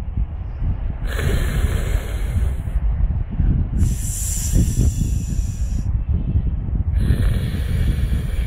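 A cat hissing at another cat in a standoff: three long, snake-like hisses, each about two seconds, with short pauses between.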